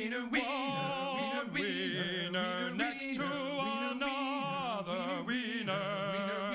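A singing voice holding a string of long notes with vibrato, about five in a row.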